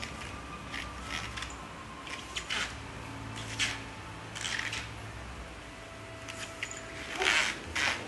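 A baby moving on a foam play mat and pressing its hands against a leather sofa: scattered short scuffs and pats, the loudest cluster near the end.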